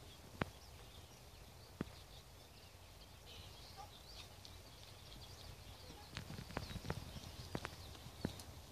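Horse's hooves trotting on an arena's sand footing, a cluster of hoofbeats in the last few seconds as the horse comes up alongside the handler. Two sharp clicks come in the first two seconds, and birds chirp faintly in the background.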